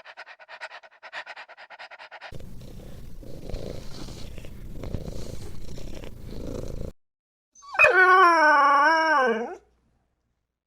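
Dog: a rapid pulsing sound, then a rougher, noisy stretch, then one loud howl of about two seconds whose pitch wavers and drops at the end.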